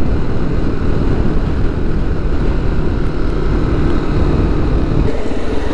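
Motorcycle engine running under way, with wind rushing over the microphone; the engine sound eases about five seconds in.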